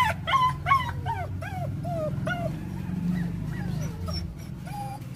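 Caged dogs whimpering and yipping: a quick run of short, high whines, several a second, with more than one dog calling at once near the start, over a steady low rumble.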